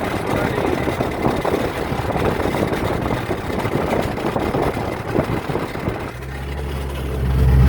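2001 Chevrolet Silverado with a failed transmission: a loud, rough, irregular grinding clatter for about six seconds, then it suddenly gives way to a steady low engine drone that swells near the end.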